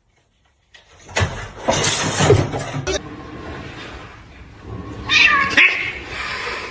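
A cat meowing and yowling. After a brief silence comes a loud stretch, then a shorter call near the end.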